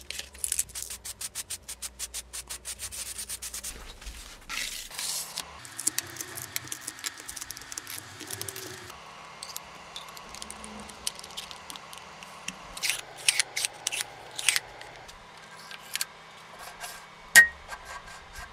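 A spray-paint can shaken, its mixing ball rattling about six times a second, then a spray of paint. After that come scrapes and clinks as the hardness tester's steel load weights are handled and set down, with one sharp metallic clank near the end.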